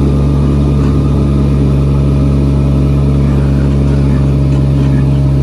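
Jungle Cruise tour boat's engine running steadily, a loud low drone heard from on board.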